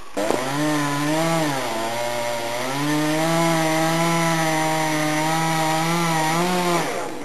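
Two-stroke chainsaw at full throttle cutting through a tree section. Its pitch drops as it bogs in the cut about a second and a half in, recovers about a second later, and holds until the saw stops near the end.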